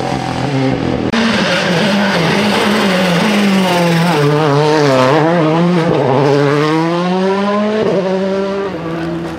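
Rally car engines at full song on a tarmac special stage. A car's engine note changes sharply about a second in. Then a Volkswagen Polo R WRC's turbocharged 1.6-litre engine wobbles up and down in pitch as the throttle is worked through a tight corner, and climbs steadily as the car accelerates away.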